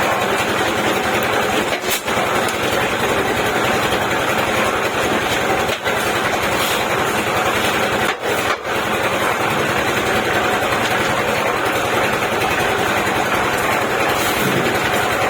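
Concrete mixer machine's engine running steadily, with a few very short dips in the sound.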